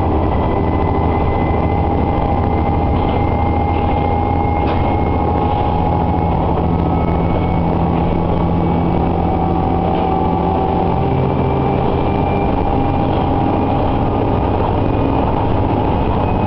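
Inside a Nagara Railway diesel railcar under way: the engine's steady drone and the wheels rolling on the rails, with a few faint clicks from the track. Some of the higher tones drift slowly upward.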